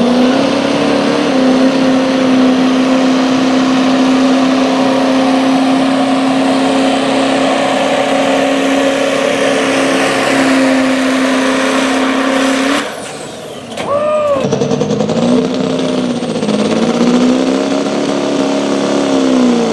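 Modified Ford Super Duty diesel pickup engine at full throttle pulling a sled, held at a steady high pitch for about twelve seconds before it stops. After a short lull, a second Ford Super Duty diesel pickup's engine comes in, its pitch rising and falling as it works under load.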